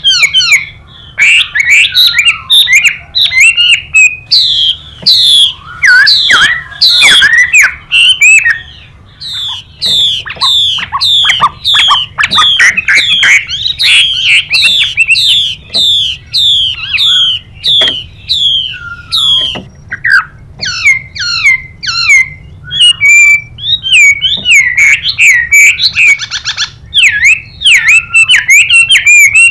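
Chinese hwamei singing loudly: a long, varied song of clear whistled phrases, with a run of quick down-slurred notes repeated about three times a second through the middle.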